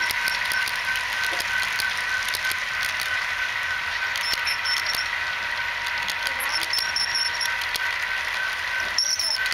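HO scale model freight cars rolling past on the track: a steady rolling hiss with a stream of sharp clicks from the wheels, under a steady high whine and a tone that pulses about three times a second. A louder cluster of clicks comes near the end.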